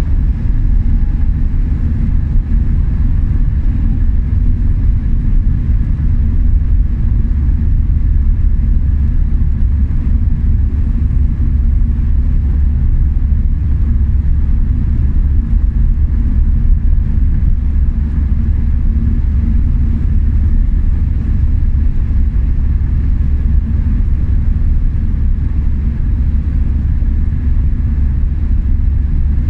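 Car driving steadily at speed: a constant low rumble of road and engine noise.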